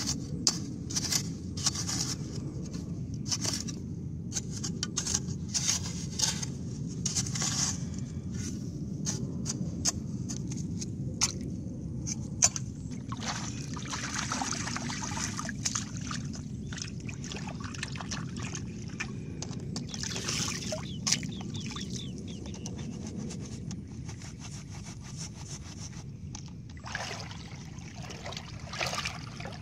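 A metal spade chopping and scraping into wet clay soil, many short strikes through the first dozen seconds. Then water trickles and flows through the channel cut in the bank, with a steady low noise underneath.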